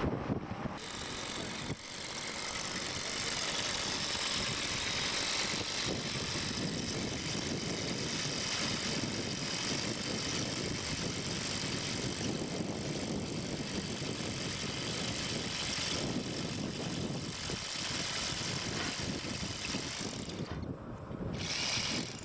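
Power drill running steadily, turning a long auger bit down into gravelly volcanic soil; the motor's high whine drops out briefly near the end.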